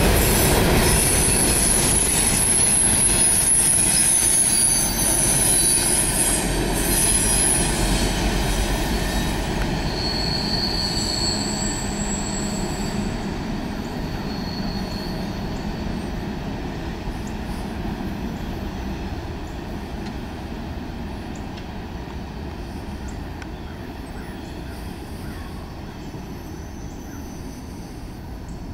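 A string of empty railroad hopper cars rolling past, wheels squealing in high, steady tones over the rumble, mostly in the first half. The sound fades away steadily as the end of the train recedes.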